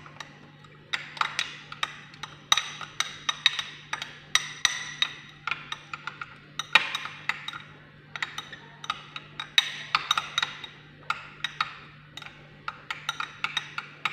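A utensil clinking rapidly and unevenly against a small glass bowl as egg yolk, grated onion and lemon juice are beaten together by hand.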